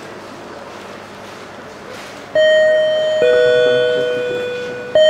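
Electronic two-note chime, a high tone stepping down to a lower one (ding-dong), sounding twice from a little over two seconds in, each note held and barely fading. Before it there is only faint room noise.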